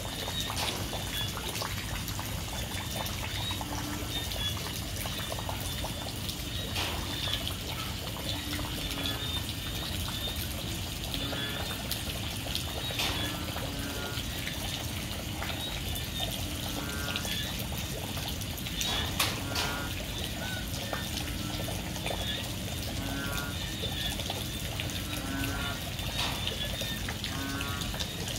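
Heavy rain falling steadily, with a chorus of frogs calling through it: short low calls repeating every second or two, and faster pulsed calls higher up.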